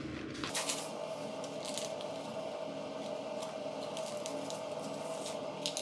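Paper sachet of baking powder crinkling and rustling in a run of small crackles as it is opened and its powder emptied into a bowl of cake batter, with a steady faint hum behind.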